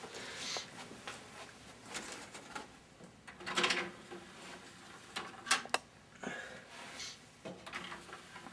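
Scattered clicks and rustles of a portable CD player being handled, with a few sharper clicks a little past the middle as a disc is pressed onto its spindle.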